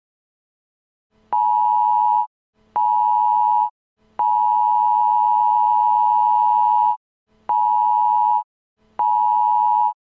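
Emergency alert attention tone: a steady two-pitched beep sounded in five bursts, two short, one about three seconds long, then two short, marking the start of a new warning.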